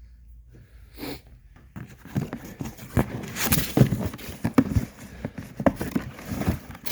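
Cardboard firework cases being handled and shifted about: a run of irregular knocks and scrapes starting about a second in.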